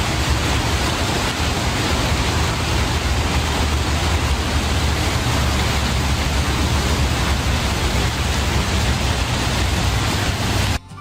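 Waterfall rushing steadily, a dense even roar of falling water with a strong deep rumble.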